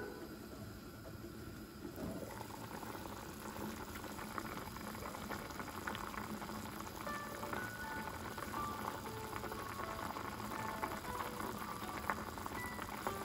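Seaweed soup (miyeokguk) boiling in an enamel pot on a gas burner: a steady, even bubbling.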